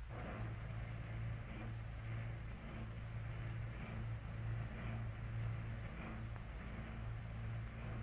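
Youngstown Kitchens top-loading automatic dishwasher starting its wash: a motor hum that surges about once a second, with water rushing and splashing against the inside of the lid.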